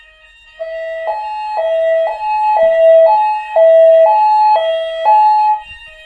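Fire alarm sounder going off with a loud two-tone alternating alarm, switching between a lower and a higher tone about every half second, set off by a test of the optical smoke detector. It starts about half a second in and stops shortly before the end.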